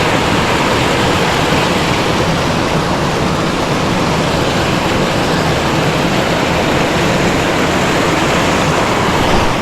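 Steady, loud rush of fast creek water running through rocky pockets.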